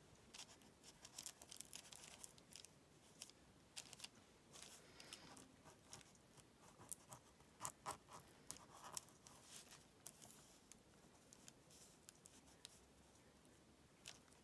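Faint, irregular rustling and crinkling of paper and small fabric scraps handled and pressed down with the fingertips, with scattered light scratches and a busier cluster of crinkles around the middle.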